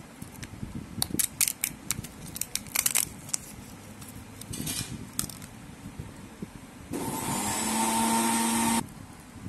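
Crackling clicks of a plastic surprise-toy tray and its foil wrapper being handled. Near the end comes a loud, steady hiss with a held tone underneath, lasting about two seconds and cutting off suddenly.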